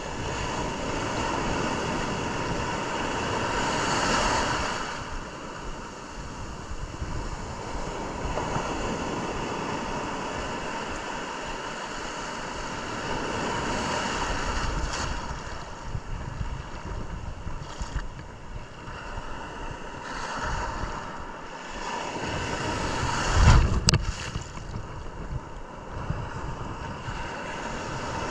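Surf breaking and washing on a beach, rising and falling in waves, with wind blowing across the microphone. A sudden loud thump about three-quarters of the way through.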